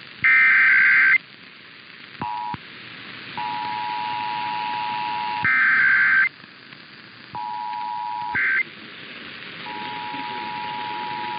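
Emergency Alert System broadcast signals: harsh, shrill SAME digital header bursts about a second long, alternating with the steady two-note EAS attention tone over radio hiss. There are three data bursts, the last one short, and four stretches of attention tone. Each part starts and stops abruptly.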